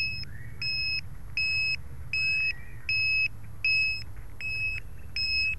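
The small electronic buzzer on an FPV quadcopter, beeping a short high note over and over, a little under twice a second.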